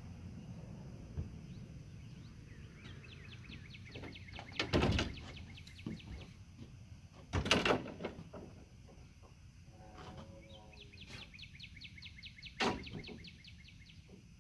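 Toy hauler ramp-patio railing panels being swung out and set in place, with three loud clattering knocks about 5, 7½ and 12½ seconds in and lighter knocks between them. A bird trills repeatedly in the background.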